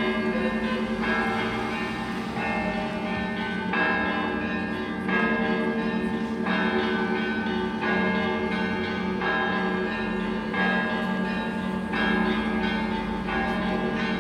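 Russian church bells ringing a zvon: many bells sounding together, with a fresh strike about every second over a steady low hum.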